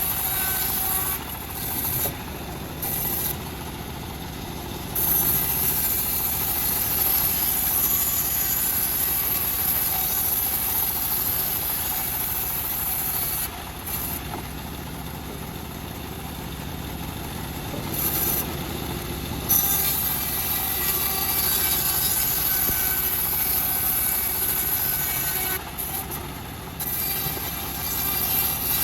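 A homemade bandsaw mill and its engine running continuously while sawing teak. The sound briefly drops and thins out several times, near the start, around halfway and near the end.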